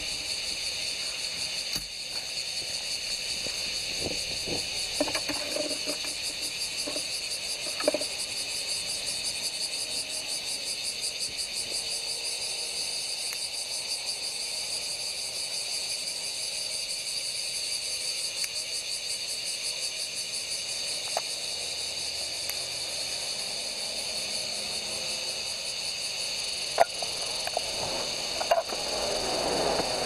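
Cicadas chirring steadily with a fine, even pulse. A few short clicks and knocks from handling the metal stove come about five and eight seconds in and twice near the end.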